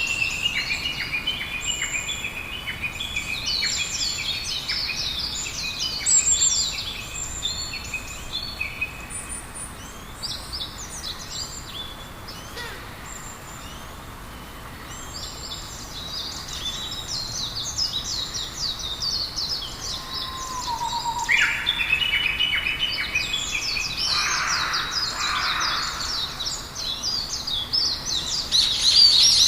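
A chorus of several birds singing and chirping, with many short, high calls overlapping. It thins out in the middle and grows busier again toward the end.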